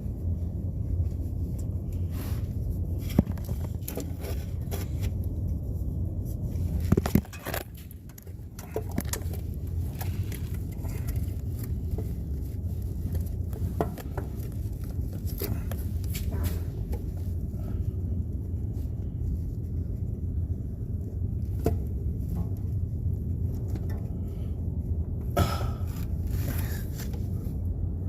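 Scattered metallic clinks, knocks and scrapes of hand tools and bolts as a replacement starter motor is bolted in, over a steady low hum.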